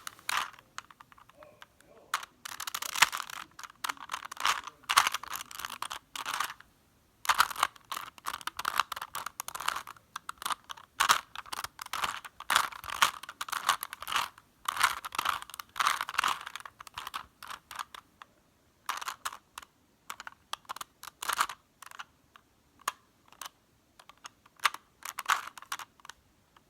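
Plastic Rubik's cube being turned quickly by hand, its layers clicking and clacking in rapid runs of turns, with a couple of short pauses.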